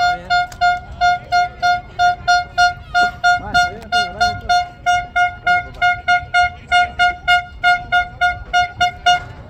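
A horn tooted in quick short blasts, about four a second, one steady pitch each time, keeping up for some nine seconds and stopping just before the end.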